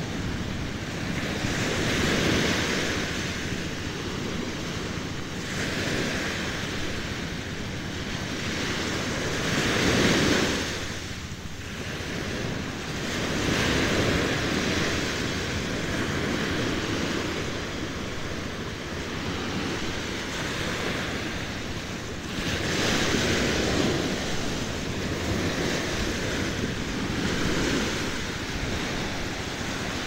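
Small waves washing onto a sandy shore, swelling and fading every few seconds, with wind buffeting the microphone.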